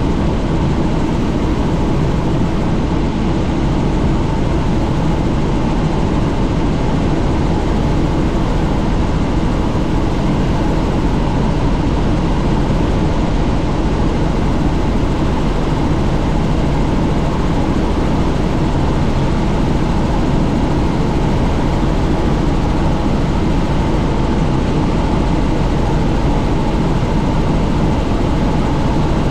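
Helicopter in flight heard from inside the open, doors-off cabin: steady engine and rotor noise mixed with rushing air, holding level with no change.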